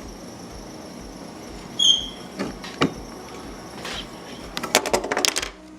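Box cutter blade and small needle-nose pliers working at a speaker's circuit board: a short squeak about two seconds in, a few sharp clicks, then a quick run of clicks and scrapes near the end.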